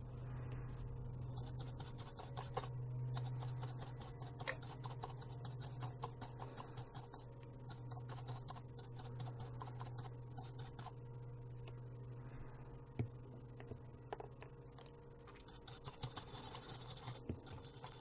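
Light, irregular scratching and scraping as flux residue is scrubbed off a smartphone circuit board, with a steady low hum underneath.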